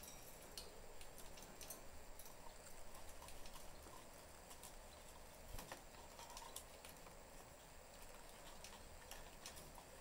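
Faint, scattered small clicks and ticks of budgerigars moving about their cage.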